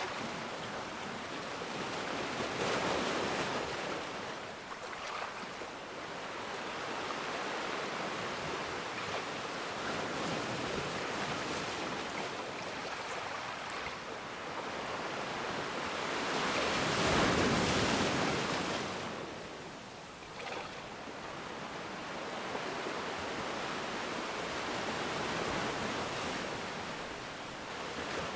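Ocean waves breaking and washing in, a steady rush of surf that swells and fades, with one larger wave cresting just past the middle.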